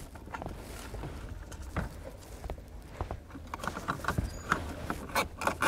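Nylon zip ties being threaded and pulled through their locking heads to hold a plastic module to a bracket: scattered small clicks and handling noises, with a quicker run of clicks near the end as a tie is drawn tight.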